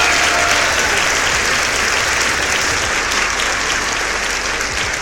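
Crowd applauding loudly, a dense steady clatter of clapping that eases slightly toward the end.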